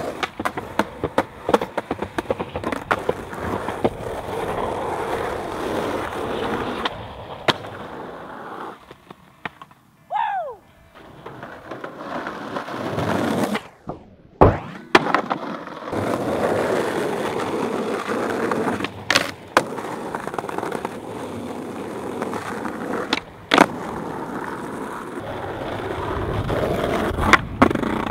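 Skateboard wheels rolling on pavement, broken by sharp pops and clacks of the board's tail and landings. A brief falling squeal comes about ten seconds in.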